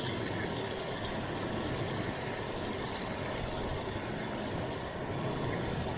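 Water pouring over a concrete spillway weir, a steady, continuous rushing. The spillway is running full after days of rain.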